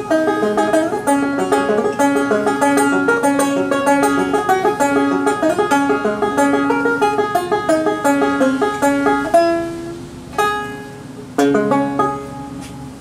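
Open-back banjo picking a lively run of notes, then ending the tune: the run stops and two last chords are struck about a second apart, each ringing out and fading.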